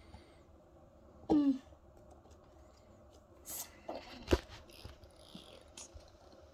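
A person coughs once, briefly, about a second in. Soft handling noises and a sharp tap follow a little past the middle.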